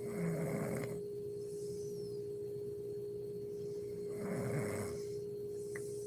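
A sleeping woman snoring: two snores about four seconds apart, over a steady hum.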